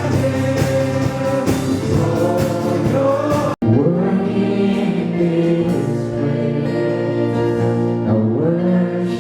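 Live group singing of an upbeat gospel worship song with band accompaniment, a steady drum beat under the voices for the first few seconds. About three and a half seconds in the sound cuts out for an instant, then resumes with long held sung notes and lighter percussion.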